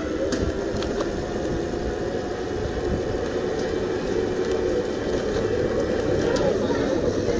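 Riding noise from an e-mountain bike with a Bafang BBS02 mid-drive motor under power: a steady rumble of wind and tyres on asphalt with a faint motor whine, getting a little louder late on as the bike speeds up.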